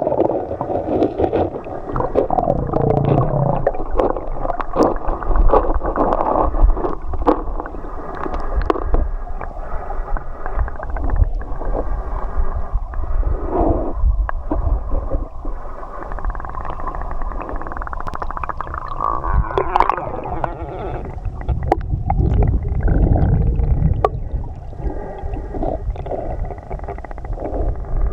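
River water heard muffled through a camera in the water: continuous gurgling and sloshing with small knocks and a low rumble, the sound dull and without any treble.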